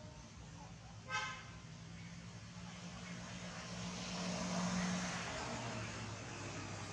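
A motor vehicle passing nearby: a steady engine drone that swells to its loudest about four to five seconds in, then eases off. A short horn toot sounds about a second in.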